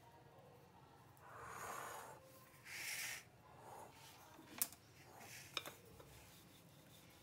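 Soft rustling and patting of a besan dough ball being pressed and turned in dry flour by hand, then a sharp knock about halfway through and two more a second later as the wooden rolling pin comes onto the counter. Quiet throughout.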